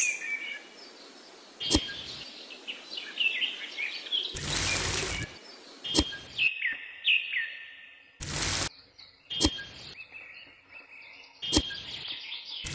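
Small birds chirping repeatedly, with a few sharp clicks. Three short gritty rushes, the loudest sounds, come from a small metal shovel scooping sand and gravel in a toy trailer.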